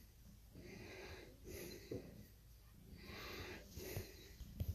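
Slow, steady breathing close to a phone's microphone: soft hissing in-and-out breaths about once a second. A few soft knocks near the end.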